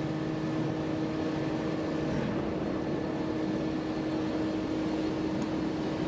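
Steady hum of heavy steel-mill machinery: a few held tones over a constant rushing noise, with no change in level.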